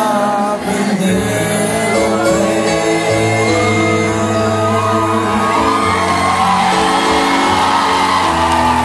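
Live band with a male lead singer performing, heard from within the audience in a large hall, with fans shouting and whooping over the music.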